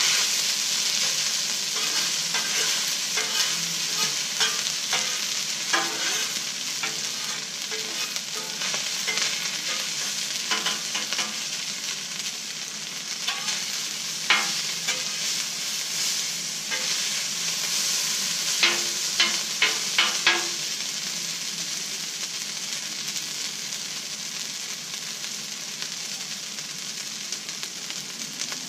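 Fried rice sizzling on a Blackstone flat-top griddle while a metal spatula scrapes and taps the steel cooking surface. A quick run of spatula taps comes about two-thirds of the way through, and the sizzle eases a little near the end.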